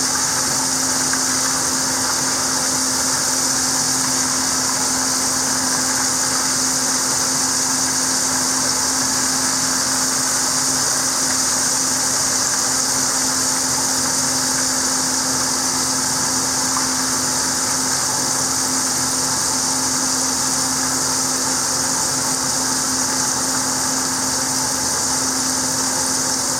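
Floured chicken legs frying in a skillet of hot oil, a steady sizzle, over the steady hum of a running kitchen vent fan.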